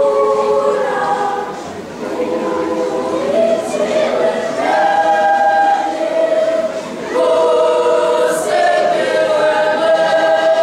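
Children's choir singing in parts, holding long chords, with short breaks between phrases about two seconds and seven seconds in.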